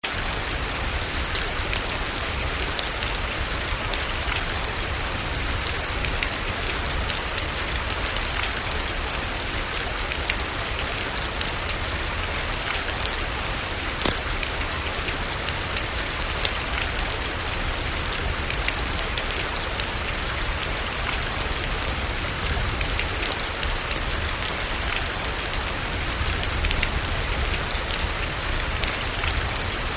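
Steady rain falling, mixed with the scattered pops and crackles of a fireplace fire; one louder pop comes about halfway through.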